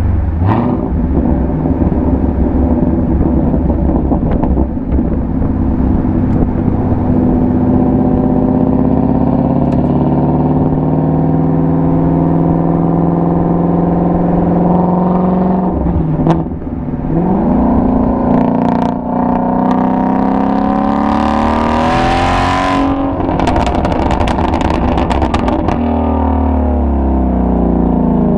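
2017 Shelby GT350's 5.2-litre flat-plane-crank V8 exhaust pulling with slowly rising pitch, dipping briefly past halfway, then revving higher. Near the end the driver lifts off and the pitch falls while the exhaust pops and crackles on the overrun.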